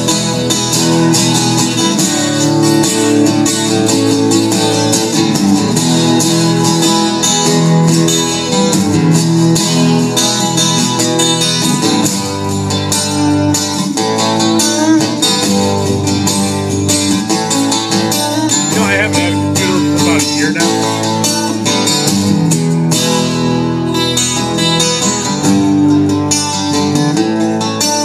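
Live guitar music: an instrumental break in a bluesy song, with the guitar playing on without singing.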